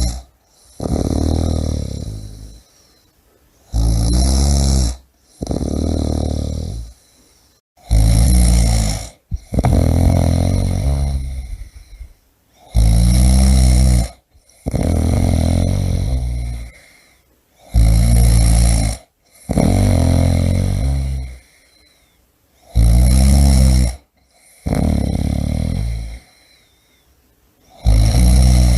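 A person snoring: a short loud snore followed by a longer one that fades away, the pair repeating about every four to five seconds with quiet breaks between.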